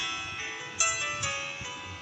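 Background instrumental music of bright, chiming notes that strike and ring away, with a louder note about a second in.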